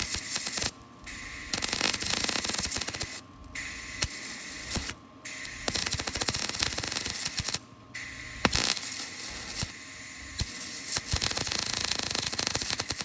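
Electric arc welder crackling and sizzling while welding a vehicle frame, in several runs broken by short pauses of about half a second.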